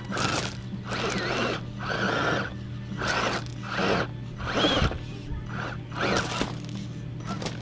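Electric motor and drivetrain of a scale RC rock crawler (Axial SCX10 Deadbolt) whirring in about eight short bursts as it is driven over rocks, over a steady background hum.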